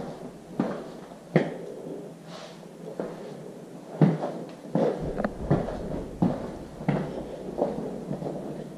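Footsteps walking across a tile floor in an empty house, a step roughly every three-quarters of a second, with light knocks and scuffs between them.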